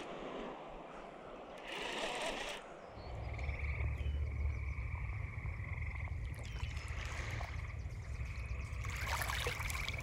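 Frogs calling, several long high trills one after another, with a steady low rumble starting about three seconds in.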